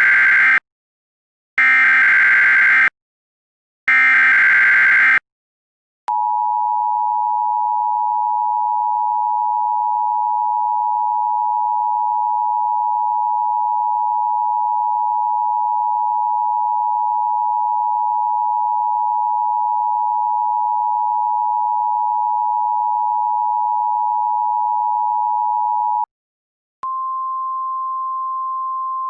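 Emergency Alert System alert sequence: the last three bursts of the SAME header's warbling data tones, each about a second long. Then the steady EAS attention signal sounds for about 20 seconds and cuts off. After a one-second gap, a single slightly higher steady alert tone begins.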